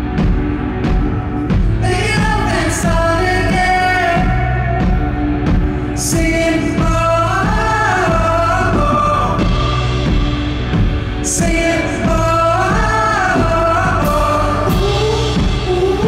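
Live pop music: a band playing a steady beat, with sung melody over it.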